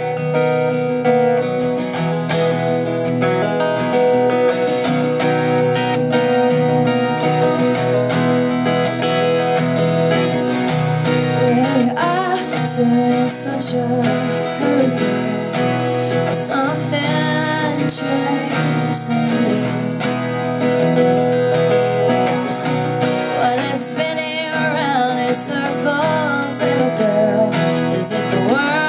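Two acoustic guitars strummed together in a live duo performance. A singing voice joins the guitars about twelve seconds in.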